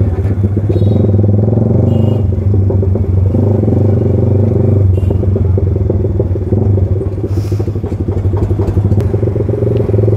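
Yamaha R15 V3's single-cylinder engine running through an aftermarket SC Project exhaust, loud and steady at low speed in a low gear, with small throttle changes.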